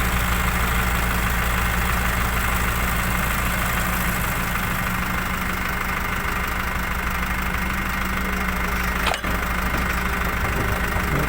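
Diesel engine idling steadily, with a brief click about nine seconds in.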